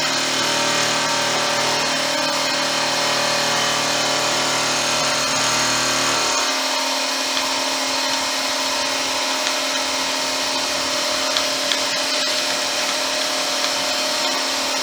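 Vertical milling machine running, its end mill taking a light cut across the top of a 1911-pattern pistol barrel's hood: a steady machine hum with a fixed pitch. A low rumble underneath drops away about six seconds in.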